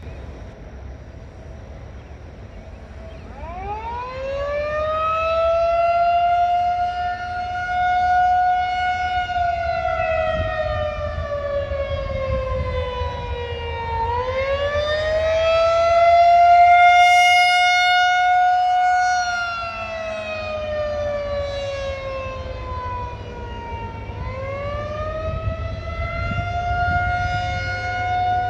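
Federal Signal 2001-SRN rotating electromechanical tornado siren sounding the attack signal of a monthly test. It winds up about three and a half seconds in, then swings slowly up and down in pitch, rising again about every ten seconds.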